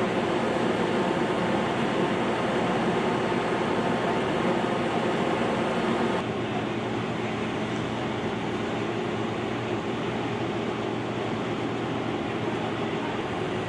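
Steady mechanical hum and noise from a docked warship's machinery. About six seconds in it changes abruptly to a slightly quieter, steadier engine hum as a military wheeled loader drives down the ship's ramp.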